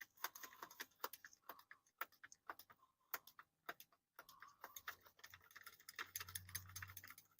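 Faint, irregular light clicks and taps, with a faint low hum in the last couple of seconds.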